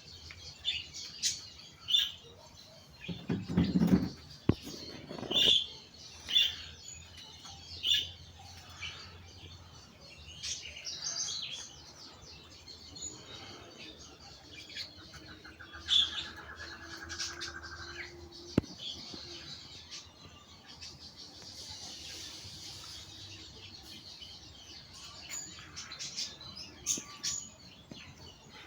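Birds chirping in the countryside: short high calls repeating every second or two, with a low rumble about three to five seconds in and a buzzy trill around sixteen seconds in.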